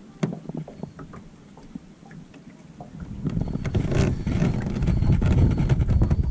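Wind buffeting the microphone: a few faint clicks at first, then a loud, gusty low rumble that builds about three seconds in and keeps up.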